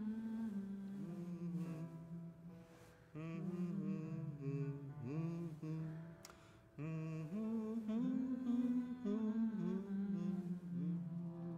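A man humming a slow, wordless tune in a low voice, in several phrases with short breaks about three and six and a half seconds in.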